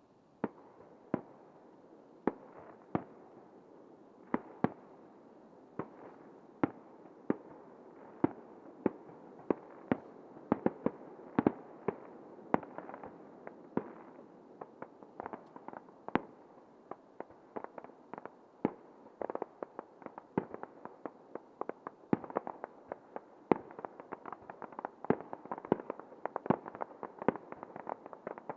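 Fireworks display: aerial shells bursting with sharp bangs about once a second, giving way in the second half to many smaller, quicker pops and crackles over a steady rumble.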